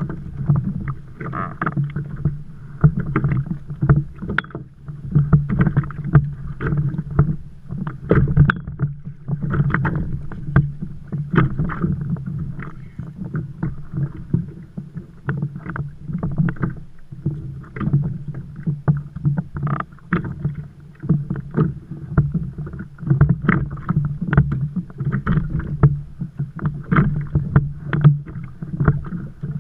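Water sloshing and slapping against a Hobie kayak's hull, with many short knocks and clatter from gear being handled on board, over a steady low hum.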